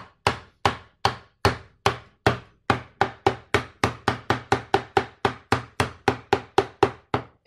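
Rapid, evenly spaced hammer blows on a plywood loudspeaker cabinet, about three or four a second, each ringing briefly. A tight-fitting panel is being knocked into place.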